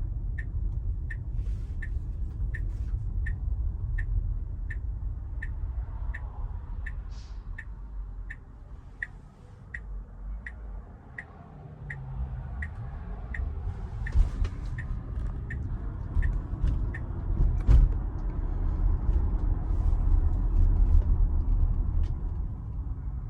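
Tesla Model Y cabin road noise while driving, with the turn-signal indicator ticking about twice a second for most of the time before stopping; a single sharp knock near the end.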